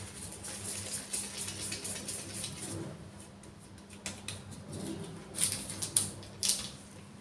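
Crinkling rustle of a disposable plastic glove and baking parchment as balls of cookie dough are rolled between the hands and pressed flat onto a lined baking tray. Several sharp crackles come about two-thirds of the way through.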